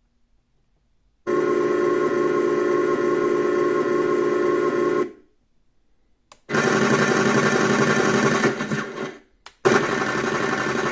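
Beier SFR-1-HL sound module in a Tamiya RC Sherman tank playing sampled tank sound effects through its speaker, triggered from the transmitter. There are three separate stretches of steady sound, each a few seconds long: one starting about a second in, one after a click at about six seconds, and one starting with a sharp onset near ten seconds.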